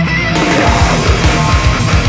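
Heavy metal band playing. About a third of a second in, the full band comes in with a rapid kick-drum beat.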